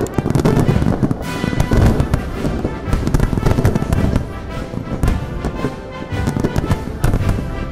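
Fireworks salute: a dense run of bangs and crackling from many shells bursting overhead, with music playing along.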